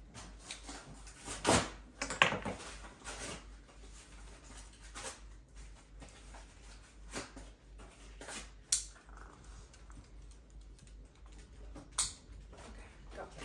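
Irregular light clicks and taps of a dog moving about and being handled while its collar is taken off, with a few sharper knocks, the loudest near the start.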